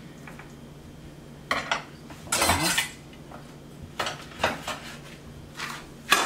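Short scrapes and knocks as a metal food needle and string are worked through a stuffed whole snapper on a wooden cutting board to sew it shut, the loudest scrape lasting about half a second, a few seconds in.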